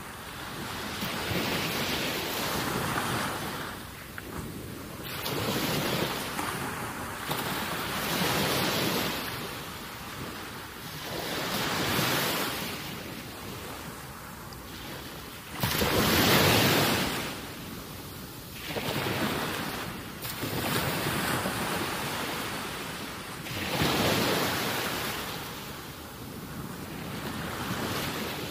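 Wind buffeting the microphone mixed with small waves washing against the rocks of a breakwater. It is a rushing noise without any tone that swells and fades every few seconds, with the strongest swell a little past halfway.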